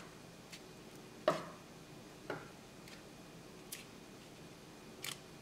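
A few light, scattered clicks from handling a French-beaded flower and its wire stem while floral tape is wrapped on: one sharper click about a second in, then three fainter ticks spread over the next few seconds.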